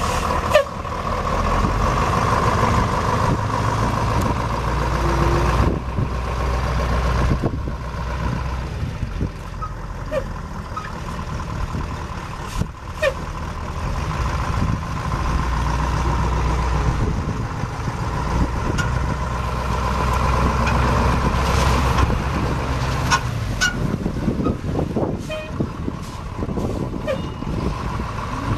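Diesel V8 engine of a 1985 Ford F800 dump truck (Detroit Diesel 8.2L) running, its low rumble swelling and easing at times, with a steady high whine over it and a few scattered clicks.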